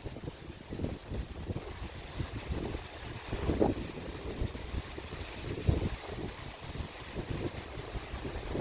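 Windstorm gusts buffeting the microphone: an uneven low rush that swells and drops, with stronger gusts about three and a half seconds in and again near six seconds.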